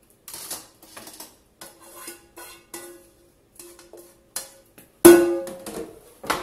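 A utensil scraping and tapping a metal frying pan as cooked chicken is worked off it onto a plate, the pan ringing with each knock. About five seconds in there is a loud clang as the pan is set down, then one more knock.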